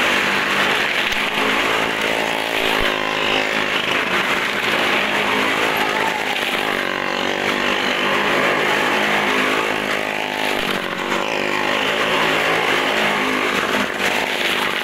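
Motorcycle engine running at steady high revs as it rides round the vertical wooden wall of a well-of-death drum, its pitch wavering slightly.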